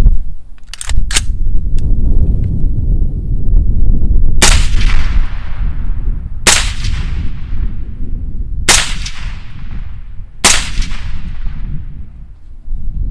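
Suppressed 7.62x39 rifle (CMMG Mutant 47 with a CMMG ZEROED 36 RAW can) firing Wolf 124-grain steel-cased rounds: four shots about two seconds apart, each followed by a long fading echo. Two sharp clicks come about a second in, before the first shot.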